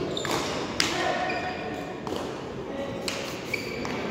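Hard pelota ball cracking against the frontón wall and floor during a rally, about four sharp hits, each ringing on in the big hall, over a murmur of crowd voices.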